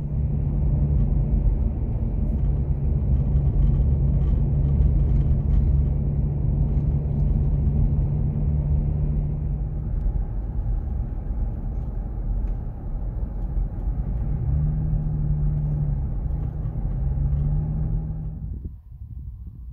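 Steady low rumble of a Nissan Xterra's engine and road noise, heard from inside the cabin while driving. The engine note wavers briefly near the end, then the sound cuts off.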